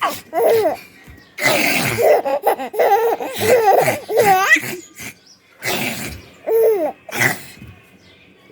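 A baby laughing in repeated bursts, with a long run of squealing, pitch-bending laughs in the first half, then a few separate giggles before it fades out near the end.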